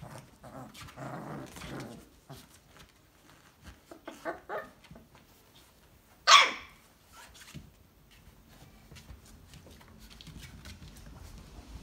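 Three-week-old basset hound puppies making small yips and grumbles, with one loud, sharp puppy bark about six seconds in.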